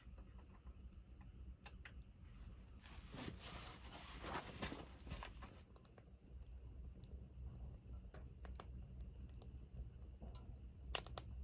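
Faint handling sounds: scattered light clicks, with a rustle swelling up and dying away in the middle, over a low steady rumble.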